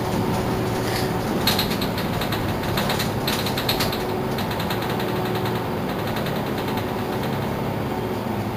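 Mercedes-Benz Citaro C2 city bus running, a steady engine and road rumble. About a second and a half in, a burst of rapid rattling clicks lasts a couple of seconds.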